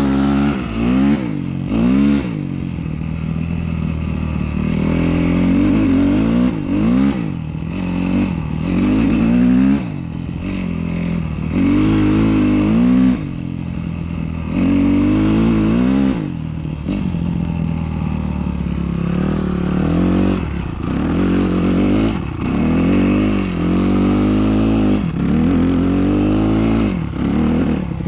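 Enduro dirt bike engine ridden through deep snow. It revs up and drops back again and again, every second or two, as the throttle is opened and shut under load.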